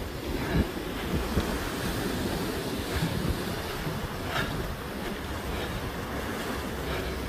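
Sea waves breaking and washing over rocks, with wind buffeting the microphone.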